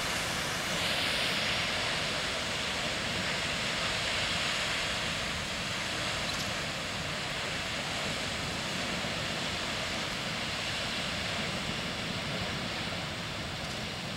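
Old Faithful geyser erupting: a steady rush of water and steam jetting from the vent, a little louder in the first few seconds.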